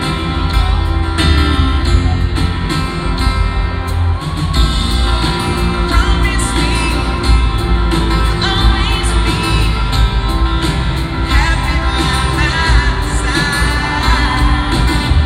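Live band music in an arena: acoustic guitars, piano and drums playing a slow pop song, with a male lead vocal, heard from far back in the seats.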